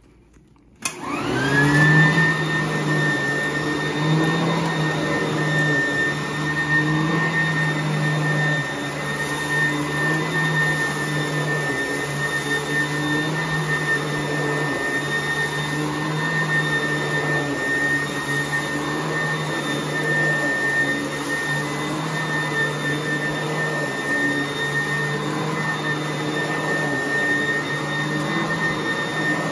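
Sanitaire vacuum cleaner switched on about a second in, its motor spinning up to a steady high whine and then running steadily, dry-vacuuming carpet ahead of hot water extraction.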